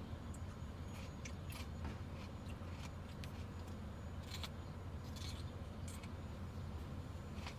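Low, steady engine idle heard muffled from inside a car, with scattered light clicks and rattles about five times.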